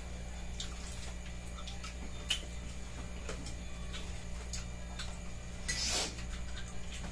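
Sparse light clicks and taps of utensils against plates during a meal, over a steady low hum, with a brief louder noise near the end.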